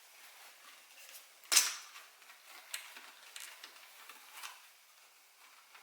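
Scattered small clicks and knocks from handling the Freego X2 e-bike's LCD display as it is taken off its mount, with one sharper click about one and a half seconds in.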